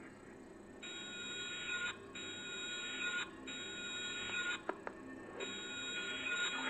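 Harsh electronic buzzing tone from a generative computer soundtrack, played through speakers. It sounds in stretches of about a second with short breaks and a longer stretch near the end, over a low steady drone.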